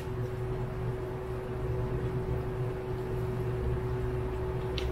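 Steady low electrical or appliance hum with a faint steady tone above it, and one faint click near the end.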